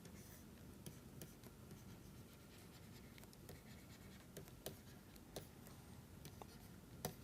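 Faint sound of writing: light pen scratching with scattered small ticks as the pen touches down.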